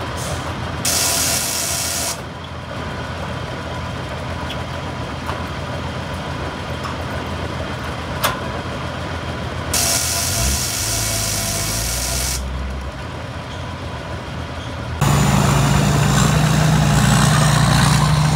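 A vehicle engine running steadily, with two bursts of hiss lasting one to two and a half seconds each. About three-quarters of the way through, the engine gets louder, with a strong steady hum.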